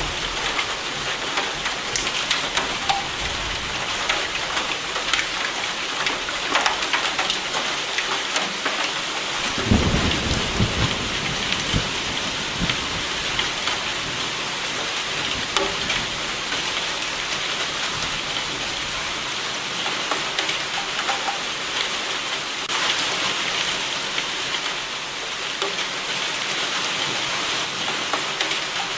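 Steady heavy rain hissing without a break, with a rumble of thunder rolling in about ten seconds in and fading over a couple of seconds.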